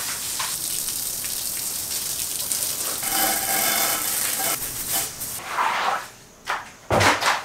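Garden hose spraying water onto a concrete garage floor: a steady splashing hiss. After about five seconds it gives way to a few short swishes as a squeegee pushes the water across the wet floor.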